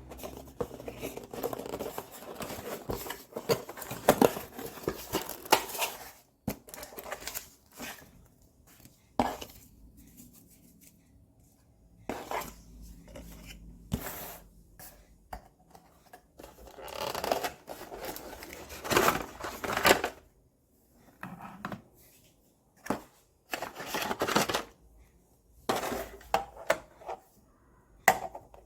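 Irregular handling noises: clicks, light clatter of small hard objects and rustling, in uneven bursts with quieter gaps between.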